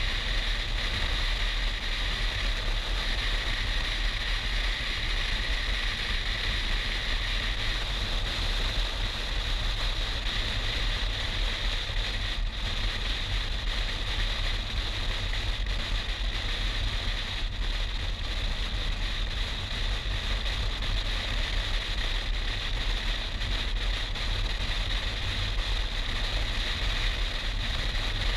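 BMW R 1200 GS motorcycle riding at a steady road speed: wind rushing over the camera microphone over a low, steady rumble of engine and tyres.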